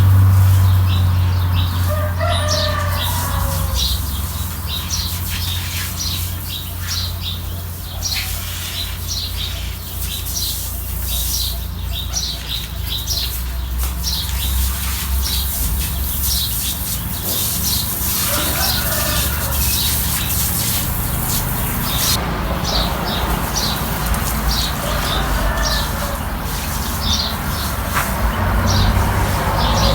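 Repeated swishing strokes of a broom sweeping, about one or two a second, over a steady low hum. A bird calls twice, a few seconds in and about two-thirds of the way through.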